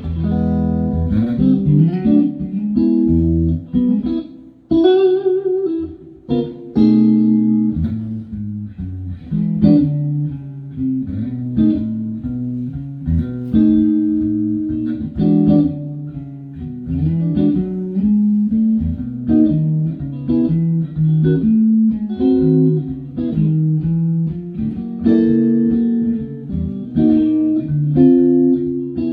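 Electric guitar, a Stratocaster fitted with Fatpups Crossroads pickups, played clean through an amplifier: melodic single-note lines and chords, with vibrato on a held note about five seconds in.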